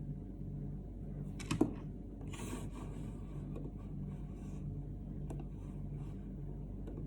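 Low, pulsing room hum with a sharp click about a second and a half in, then brief rustling or rubbing noises and a faint tick later on.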